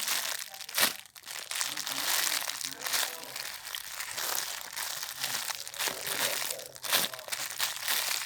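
Plastic packaging crinkling and rustling as a squishy toy is handled, with two sharper crackles, one about a second in and one late on.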